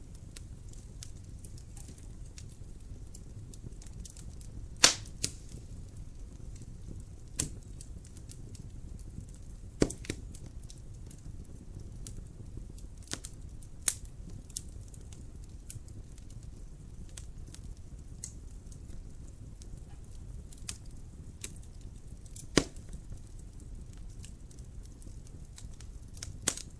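Wood fire burning in a fireplace: a steady low rumble with constant light crackling and a handful of sharp, loud pops, the loudest about five seconds in and another near 22 seconds.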